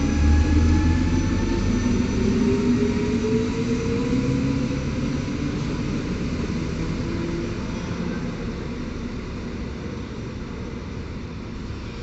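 Koleje Mazowieckie electric multiple unit pulling away, its traction motor whine rising in pitch as it gathers speed over the rumble of the wheels, then slowly fading as it leaves.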